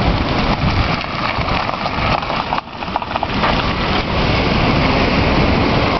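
Storm wind and heavy surf from a hurricane: a loud, continuous rush of noise with a buffeting low rumble on the microphone, dipping briefly about two and a half seconds in.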